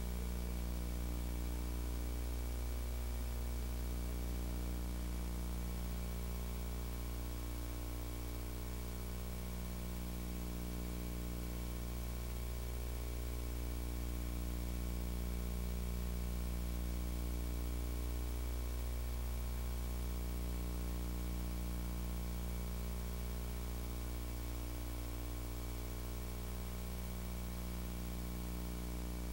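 Steady low electrical hum and faint hiss of VHS tape playback, with no programme sound.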